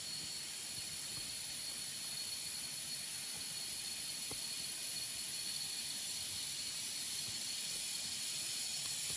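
A chorus of forest insects making a steady, high, even hiss with a thin unbroken whine running through it.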